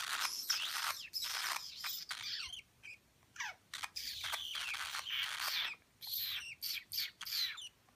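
Rosy Bourke's parakeets chirping and warbling in a run of quick, high calls, with a short pause about three seconds in and a string of brief chirps near the end.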